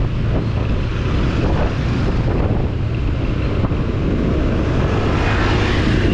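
Motor scooter riding at speed: steady engine and road rumble with wind rushing over the microphone, the hiss growing brighter near the end.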